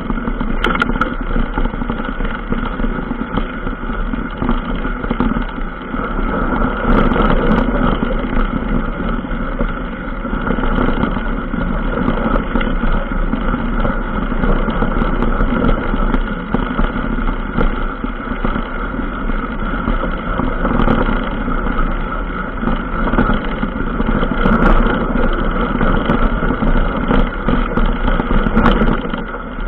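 Motor vehicle engine running steadily while riding over a rough dirt trail, with a few short knocks from bumps, one about a second in and a couple near the end.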